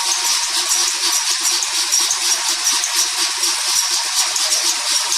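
Coconut dehusking-and-scraping machine running, a steady loud rattling hiss with dense irregular ticks.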